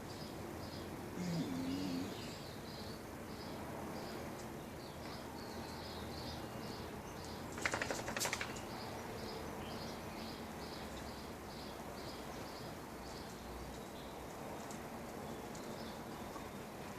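Outdoor background with a high chirp repeating about twice a second throughout. A brief clatter of clicks comes about eight seconds in.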